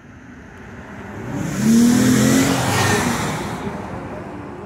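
A car driving past, its engine and tyre noise swelling to a peak about two seconds in and then fading away.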